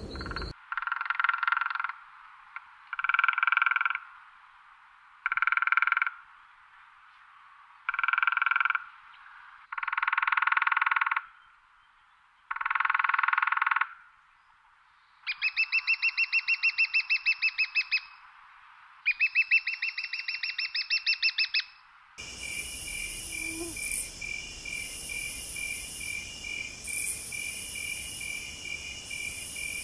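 A series of animal calls of about a second each, six in all, then two long, fast-pulsing trills. About 22 s in the sound changes to a steady chorus of insects chirping with a quick, even pulse.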